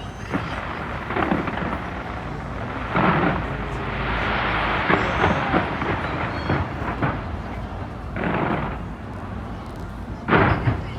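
Fireworks exploding: booms every few seconds, each followed by a rumbling echo, with a stretch of rapid crackling in the middle.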